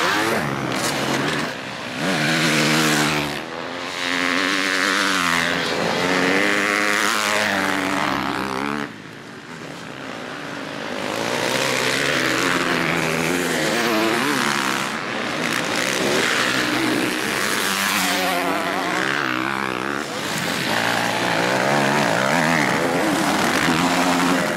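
Motocross bike engines revving hard as riders race past, the pitch climbing and dropping again and again with each throttle change. The sound dips briefly about nine seconds in, then picks up again.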